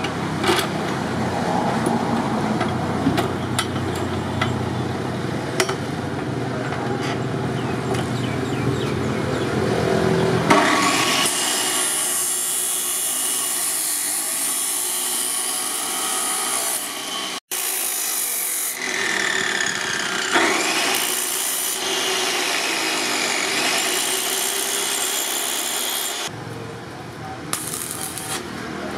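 Abrasive chop saw cutting through a steel tube: a loud, steady grinding hiss from about a third of the way in until near the end, briefly broken by an edit midway. Before the cut there is a lower hum with scattered ticks. Near the end, the uneven crackle of stick arc welding.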